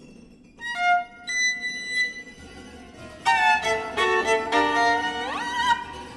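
Background music: a melody of a few separate notes, then a busier run of notes from about three seconds in that ends in a quick upward slide.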